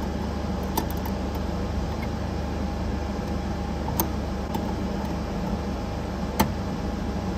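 Steady low hum and whir of laboratory equipment at an LC-MS instrument, with a few small metallic clicks of a wrench on the tubing fittings, the sharpest about six seconds in.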